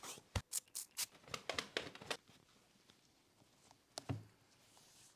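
Soft handling noises from cleaning camera gear by hand: a quick run of small clicks, rubs and scrapes, then one short soft knock about four seconds in.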